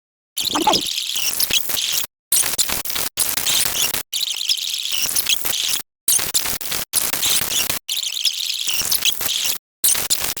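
A rapid string of about eight short, unrelated sound clips, each a second or two long and cut off abruptly by a brief gap of dead silence; most are harsh and noisy, with a short sliding tone in the first one.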